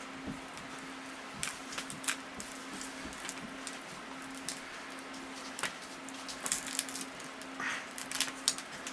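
Scattered small clicks and crackles of a phone's rear glass panel being pried off with plastic shims, the strong adhesive letting go; they come more often in the second half. A steady low hum runs underneath.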